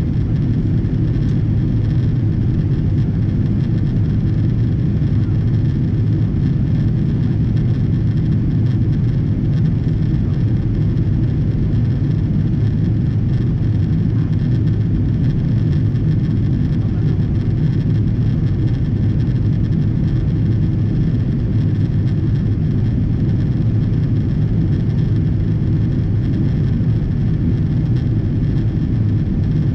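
Steady engine and airflow noise inside the cabin of a Boeing 777-200ER, a deep, even rumble from its Rolls-Royce Trent engines with no change in pitch or level.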